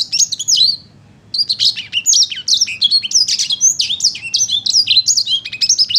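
A songbird known in Indonesian bird-keeping as 'sanger paud' singing a fast, varied warble of sweeping whistled notes. It breaks off for about half a second just under a second in, then sings almost without pause.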